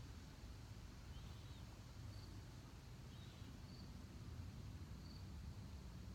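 Faint crickets chirping outdoors, a short high chirp every second or so, over a low steady rumble of background noise.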